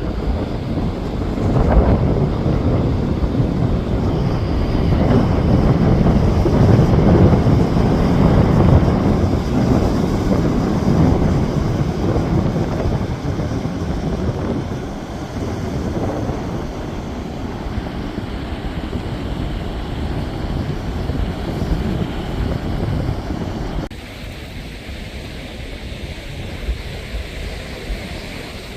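Wind buffeting a handheld camera's microphone in gusts, a low rumbling rush that is strongest in the first half, eases off, then drops suddenly near the end.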